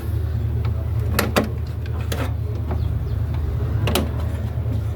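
A steady low hum with a few sharp clicks and knocks scattered through it, the loudest about a second in and about four seconds in.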